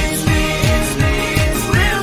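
Background pop music with a steady kick-drum beat.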